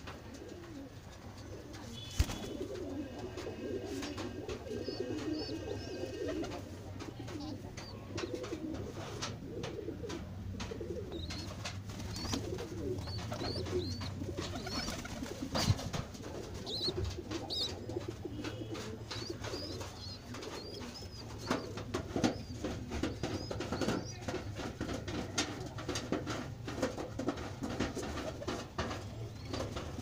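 Domestic pigeons cooing in low, wavering coos that run on throughout, with short high chirps now and then and scattered clicks of handling.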